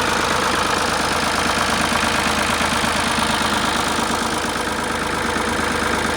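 Ford tractor engine running steadily with a smooth, even firing beat.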